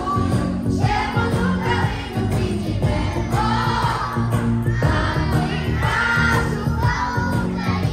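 A group of children singing together over loud music with a steady beat, played through a PA speaker.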